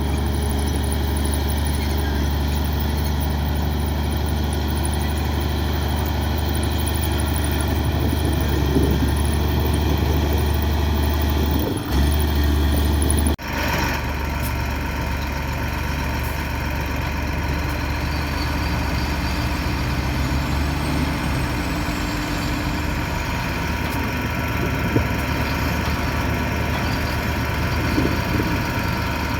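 Komatsu D58 crawler bulldozer's diesel engine running steadily with a low hum. About 13 seconds in, the sound breaks off abruptly and resumes slightly different.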